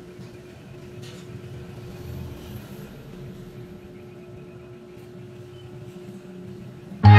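Faint room tone with a steady low hum. Music starts abruptly near the end.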